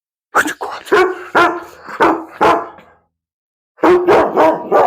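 A dog barking: about five barks spread over two seconds, a pause, then a quick run of four more near the end.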